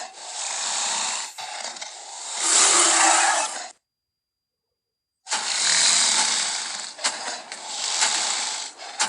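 Carnotaurus growl and roar sound effects: harsh, raspy growls that swell to a loud snarl, then stop dead for about a second and a half, then start again with more growling and a few sharp snorts or clicks.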